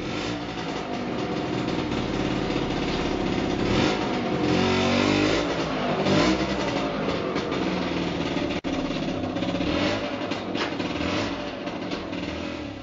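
A small motor vehicle's engine running close by, with its pitch rising and falling about five seconds in. The sound cuts out for a split second a little past the middle.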